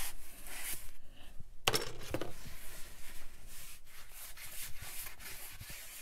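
A long white fiberglass antenna rubs and scrapes as it is slid out of a cardboard mailing tube, with a pair of sharp knocks about two seconds in. The rustling dies down near the end.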